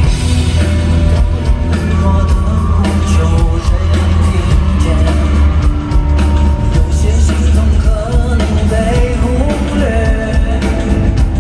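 Live pop-rock band music in a stadium, with a heavy bass line and a steady drum beat, and a voice singing a melody over it from about halfway through.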